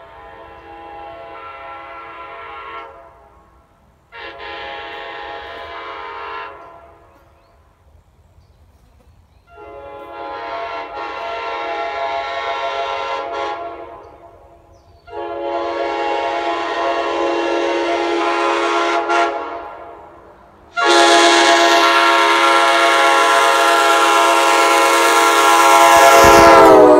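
Nathan Airchime K5LA five-chime train horn sounding a series of blasts: the end of one, then a short blast, two longer ones and a final long continuous blast, each louder than the one before. Near the end the whole chord drops in pitch as the horn goes by.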